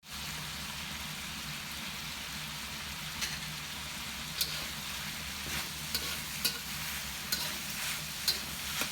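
Food sizzling as it fries in hot oil in a pan: a steady hiss, with scattered sharp pops of spattering oil from about three seconds in.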